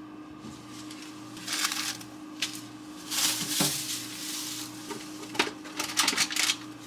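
Plastic packaging crinkling and rustling in bursts as a cling-wrapped tray of chicken drumsticks and a plastic bag are handled at an open refrigerator, with a knock a little past the middle, over a steady low hum.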